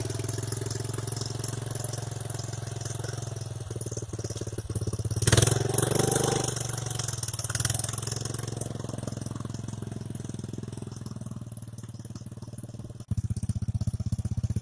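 UD-15 single-cylinder four-stroke engine of a homemade mini tractor running with a steady, rapid firing beat as the tractor drives across grass. It swells louder for about a second around five seconds in, and near the end the sound jumps abruptly louder.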